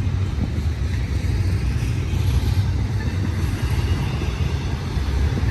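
Intermodal freight train of containers and trailers rolling on the main line, a steady low rumble.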